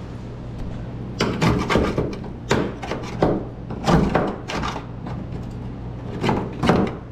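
A flat-bladed hand tool scraping old road tar and rusty crud out of the inside of a 1954 Chevrolet's rear quarter panel. It comes as a dozen or so short scraping strokes starting about a second in, with a brief pause about five seconds in.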